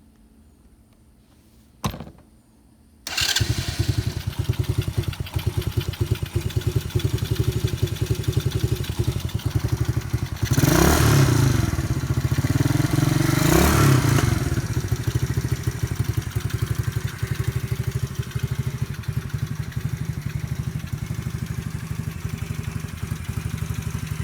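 A 125cc ATV's small single-cylinder engine being started on choke: a brief burst about two seconds in, then it catches about a second later and runs with a rapid, even beat. It is revved up twice, then settles to a steady idle, running well now that its no-start fault is fixed.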